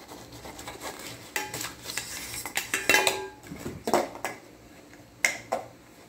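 Metal reflector shade and clamp of a clamp light knocking and clinking as it is handled and put together: irregular metallic knocks, a few ringing briefly, the loudest about halfway through.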